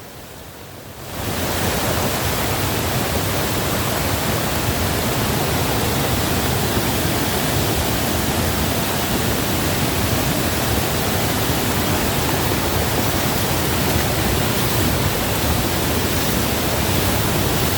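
Steady, loud rush of floodwater, an even hiss-like roar that comes up about a second in and holds without change.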